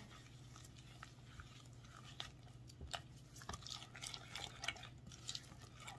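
Faint wet squishing and soft irregular ticks of a silicone spatula stirring sugar into mashed banana and egg in a glass bowl.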